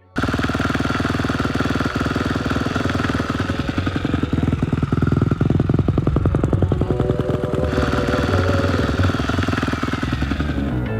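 An engine running steadily with a fast, even firing pulse, starting abruptly out of silence.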